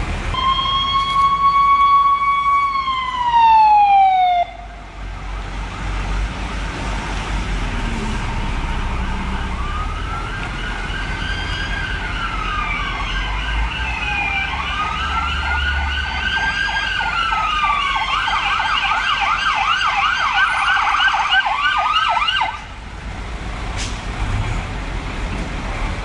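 Fire engine sirens. First one siren holds a steady tone, then winds down in pitch. After a short stretch of traffic noise, an electronic siren wails up and down, switches to a fast yelp, and cuts off suddenly.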